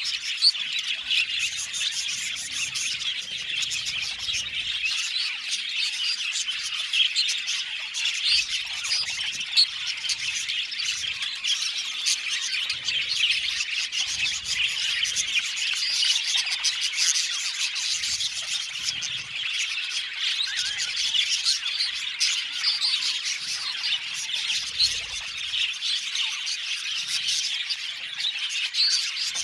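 A colony of budgerigars (budgies) in an aviary, many birds chirping, warbling and squawking over one another in a continuous chatter.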